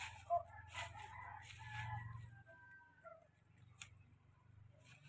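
A rooster crowing: one drawn-out call about two seconds long that drops in pitch at its end. A few sharp clicks sound alongside it.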